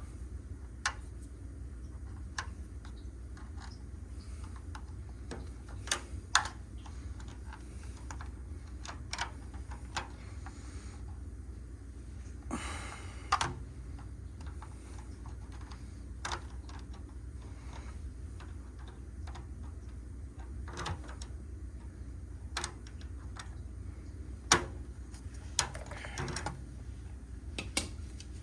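Irregular sharp clicks and light knocks, a few seconds apart and some louder than others, over a steady low hum.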